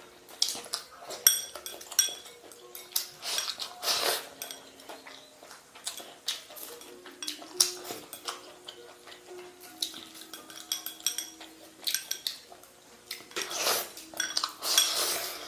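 Chopsticks clinking and scraping against bowls while eating, in many short, irregular clicks, with a few longer, louder noisy sounds about four seconds in and near the end.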